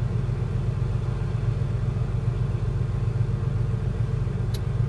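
Steady low engine rumble of a large purse-seine fishing vessel's diesel as it leaves harbour. A brief click sounds near the end.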